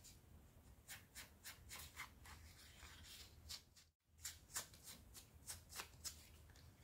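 Faint, irregular light taps and scrapes as paint is dabbed onto the edges of an EVA foam leaf, over near silence.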